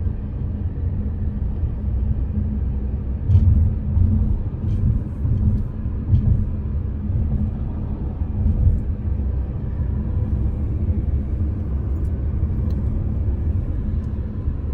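Steady low rumble of a moving car, heard from inside the cabin.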